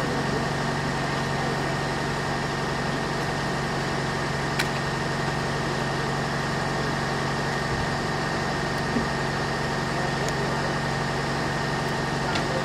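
A steady mechanical hum, like a motor or engine running without change, with a couple of faint clicks.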